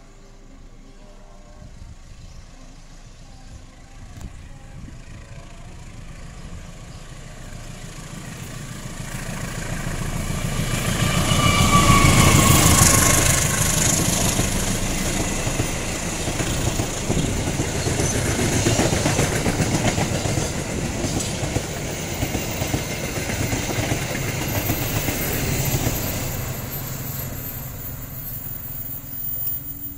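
Diesel-electric locomotive of a KAI passenger train growing louder as it approaches, passing loudest about twelve seconds in. Its coaches follow with a rhythmic clickety-clack over the rail joints, which fades away near the end.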